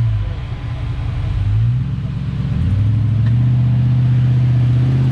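The V6 engine of a Mitsubishi 4x4 pickup working at low speed on a rough sandy trail: its note drops, then rises in two steps and holds steady under load.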